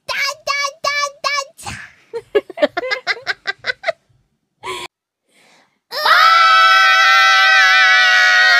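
High-pitched young women's voices: a run of short, evenly spaced cries, then quick giggling. From about six seconds a long, loud, high-pitched scream is held on several wavering pitches at once.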